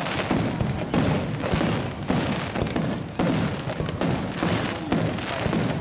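Fireworks bursting in quick succession, a boom about once a second, with crackling in between.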